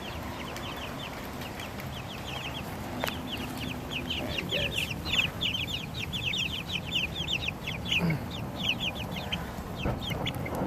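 A group of young silkie chicks, about three weeks old, peeping: a steady stream of short, high, downward peeps, several a second, thickest around the middle.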